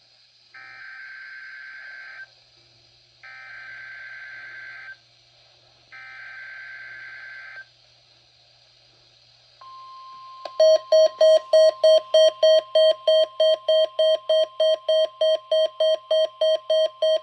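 NOAA Weather Radio weekly test signal: three short bursts of SAME digital header data, then the steady 1050 Hz warning alarm tone. About a second after the tone starts, a loud, rapid beeping of about four beeps a second joins it and is the loudest sound.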